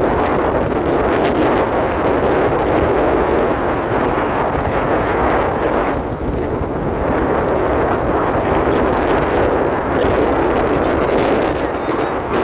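A vehicle driving on a dirt road: steady engine, tyre and wind noise, dipping briefly about halfway through.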